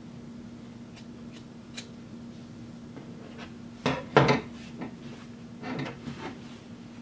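Scissors snipping fabric with a few faint clicks, then the metal scissors set down on a hard tabletop with two sharp knocks about four seconds in, followed by softer rustling of fabric being handled. A steady low hum runs underneath.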